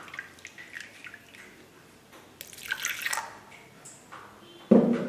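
Water sloshing and splashing inside a stainless-steel mixer-grinder jar as it is swirled to rinse out leftover batter, with a denser splash about halfway through. A loud knock with a short ring comes near the end.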